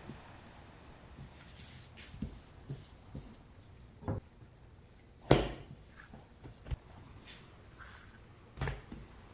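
Scattered knocks and thumps from kitchen work, about six in all, the loudest about five seconds in.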